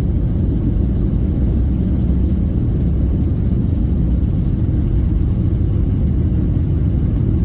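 Inside the cabin of a Boeing jet airliner during takeoff: a steady, loud, low rumble of the jet engines at takeoff power as the plane rolls and lifts off.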